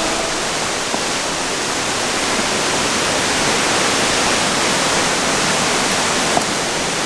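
Waterfall rushing steadily, an even wash of falling water with no let-up.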